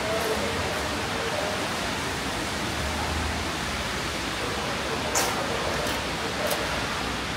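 Steady hiss of rain falling on a city street, with three short sharp clicks in the second half.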